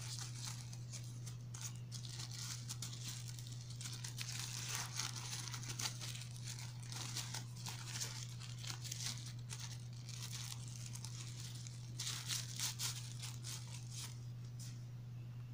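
Thin tissue paper crinkling and tearing as it is unwrapped by hand and its sticker seal pulled open, in repeated bursts of crackling. A steady low hum runs underneath.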